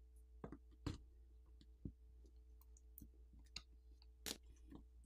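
Faint, scattered clicks and taps, about seven in all, of a plastic pry tool and fingers working a glued-down phone battery loose from the phone's frame.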